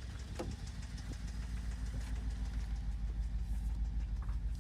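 BMW N63 4.4-litre twin-turbo V8 idling with a rapid, even knocking pulse. This is the knock the car was brought in for repair with.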